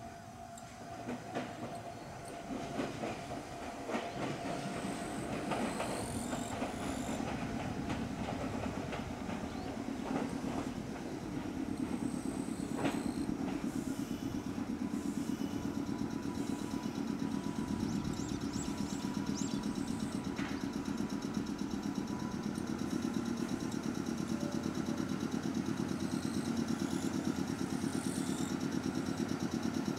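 Meitetsu 6000 series two-car electric train running slowly into the station, its wheels clicking over the rail joints. A steady low hum builds about a third of the way in and holds as the train draws alongside the platform.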